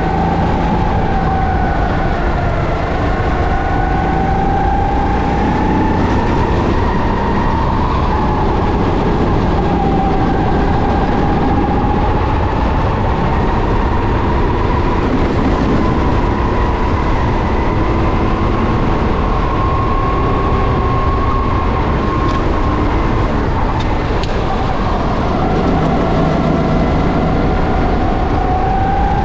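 Kart engine running hard at racing speed, its pitch sagging a few times and then climbing again as the revs go down and back up.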